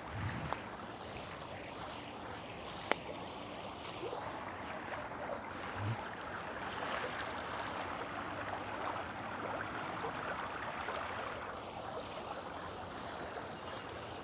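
Steady rushing of running water, like a stream, with a single sharp click about three seconds in.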